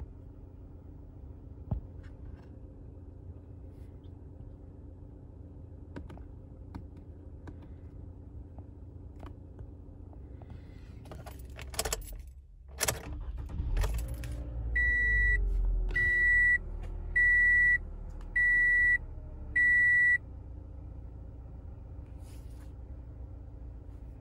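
Toyota Camry engine idling, shut off with a few clicks about halfway through, then restarted: it catches with a low rumble and its pitch sinks as it settles back to idle. Meanwhile the dashboard chime sounds five short, high, evenly spaced beeps.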